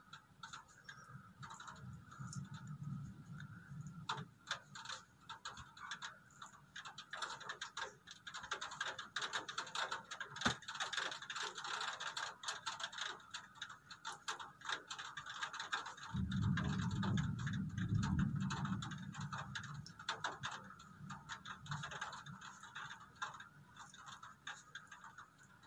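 Raindrops ticking quickly and irregularly on a hard surface close by during a thunderstorm. A low rumble of thunder comes about two-thirds of the way in, with a fainter one near the start.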